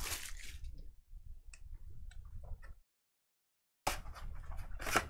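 Faint clicks and light rustling of trading-card boxes and foil packs being handled and opened. The sound cuts out completely for about a second just past the middle.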